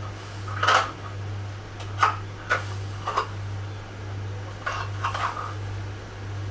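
Cookware knocking and clattering on the stove: a metal utensil striking a pot several times, in short separate knocks with pauses between them, over a steady low hum.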